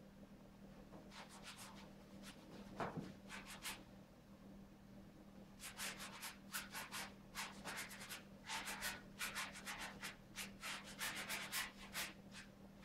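Paintbrush scrubbing paint onto a large stretched canvas: a few scattered strokes at first, then a dense run of quick strokes, several a second, from about halfway through.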